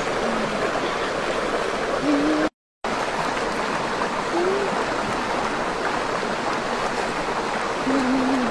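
Stream water rushing and splashing over rocks in a steady, even flow. The sound cuts out completely for a moment about two and a half seconds in.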